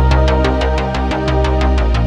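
Electronic background music with a fast, steady beat, about eight hits a second, over strong bass.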